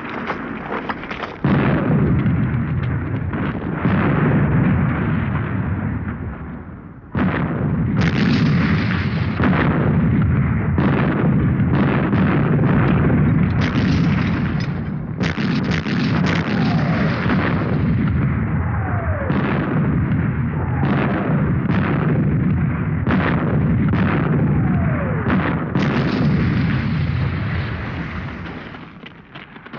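Battle sounds: a continuous barrage of artillery explosions and gunfire. A sharp blast comes about seven seconds in, and several falling whistles of incoming shells are heard in the second half.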